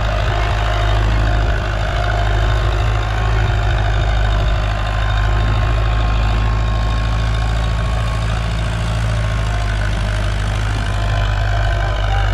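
Farmtrac 6055 tractor's diesel engine running steadily under load as it pulls a 16-disc (8x8) disc harrow through the soil.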